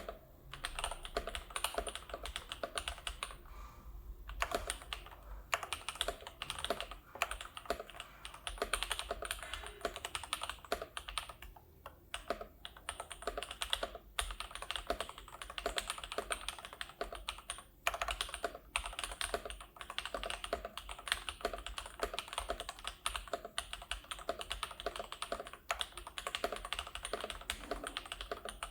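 Typing on a Tester68 mechanical keyboard with lubed and filmed Gateron Pure Bery switches and PBT keycaps, dampened by a foam case, switch pad and silicone plate. Keystrokes come in a quick, steady stream, with a couple of short pauses.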